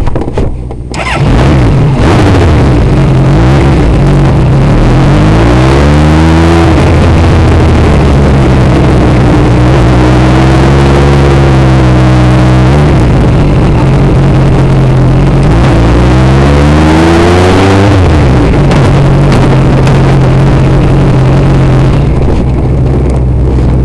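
Single-seater hill-climb race car's engine, heard from on board, running loud; it revs up twice, about six and seventeen seconds in, the pitch rising and then dropping sharply each time, and holds a steady note in between.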